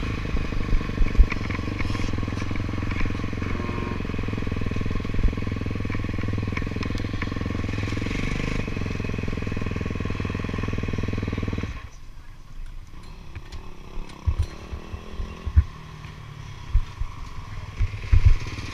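Motocross bike engine running steadily at a constant pitch, then falling away suddenly about twelve seconds in. A quieter stretch follows with scattered sharp knocks and clatter as the bike rolls on slowly.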